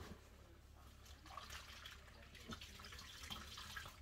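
Near silence in a small kitchen: a faint hiss of water, as from a tap or sink, with a few soft clicks over a low hum.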